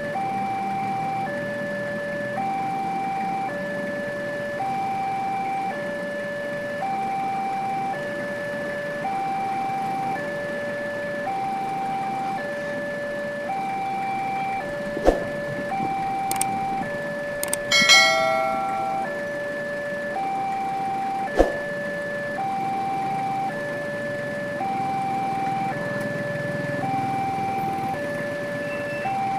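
Railway level-crossing warning alarm sounding with the barrier down: an electronic two-tone signal alternating high and low, about a second per tone, warning that a train is approaching. About two-thirds of the way through there is a brief vehicle horn, and two sharp knocks come a few seconds apart.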